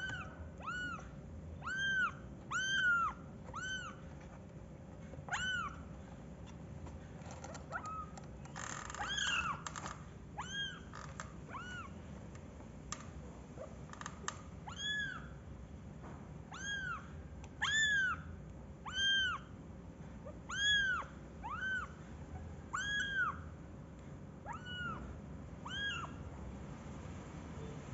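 Kittens mewing over and over: short, high-pitched mews, each rising and falling in pitch, about one a second with a few short pauses. There is a brief rustle about nine seconds in.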